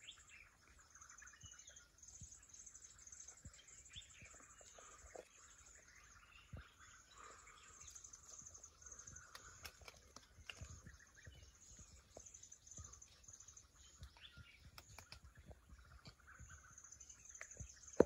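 Faint woodland ambience: birds chirping and calling here and there over a high, pulsing trill that keeps going, with occasional soft low thumps.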